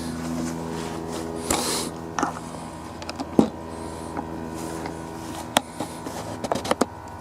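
Scattered clicks and knocks of hands handling the mower and its engine parts, a handful in all with a small cluster near the end, over a steady background hum.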